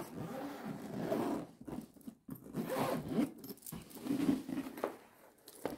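Zipper on a padded fabric carry case being pulled open around the case's edges, in several pulls with short breaks.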